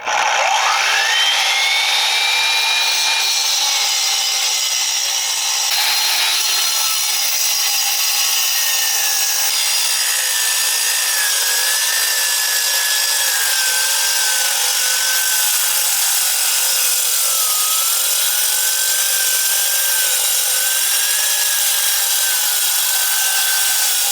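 Vevor 9-inch electric wet concrete saw starting up, its motor whine rising quickly to full speed, then the diamond blade cutting a crack-control line into a concrete slab. The pitch drops and wavers as the blade loads up in the concrete, over a steady gritty grinding.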